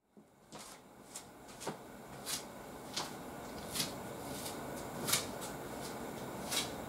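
Light, sharp clicks at irregular intervals, about one a second, over a faint room hiss that fades in at the start.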